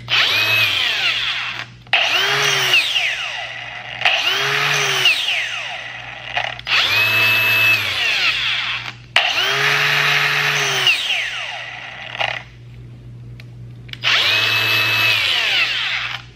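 Milwaukee M18 cordless angle grinders triggered six times with no load: each run rises to a steady high whine for about two seconds, then winds down.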